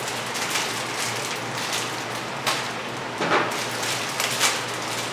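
A steady hiss of background noise with a faint low hum, and a few brief knocks or clinks from handling about halfway through and near the end.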